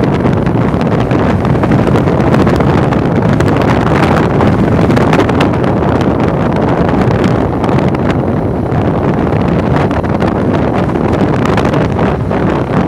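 Loud, steady wind buffeting the microphone on a moving motorbike, with engine and road noise underneath.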